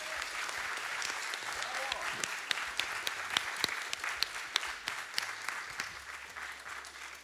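Audience applauding at the end of a talk, the clapping thinning out and fading over the last couple of seconds.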